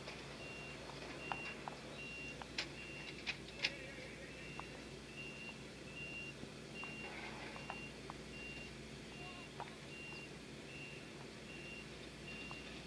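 A vehicle's reversing alarm beeping steadily, about two and a half beeps a second, with a few sharp knocks and clatters about three seconds in.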